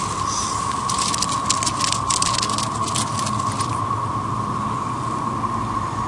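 Steady, unbroken drone of a chorus of male 13-year periodical cicadas (Magicicada, Brood XIX) singing in the trees. From about a second in until nearly four seconds, close crackly rustling of grass and dry pine needles being handled lies over it.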